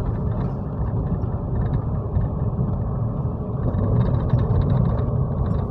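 Car driving along a road: the engine and tyres make a steady low rumble.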